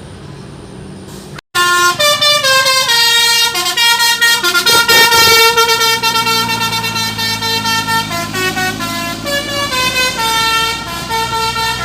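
Basuri telolet multi-tone bus horn playing a quick tune of stepped notes. It starts suddenly about a second and a half in, after a low steady hum, and carries on for about ten seconds.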